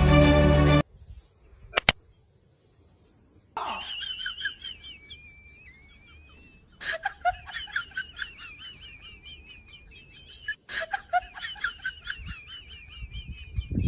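Music cuts off about a second in. After a single click and a short hush, an animal's rapid, high-pitched chattering calls start about three and a half seconds in and run on in long bursts with brief breaks.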